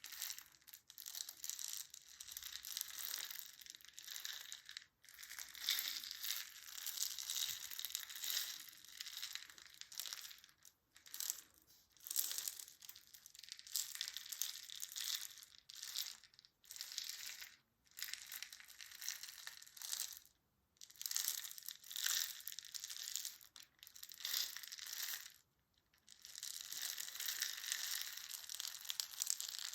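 Close-up crisp crackling and crushing noise, as of a material being squeezed and crinkled by hand, coming in runs of one to several seconds with brief pauses between them.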